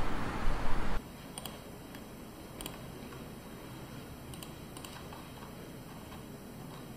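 Outdoor traffic noise for about the first second, then a cut to a quiet room with a few scattered clicks of computer keyboard keys being typed.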